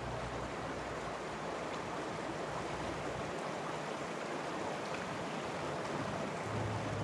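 Shallow river water running over stones, a steady rush, with a low rumble that fades out about three seconds in and returns near the end.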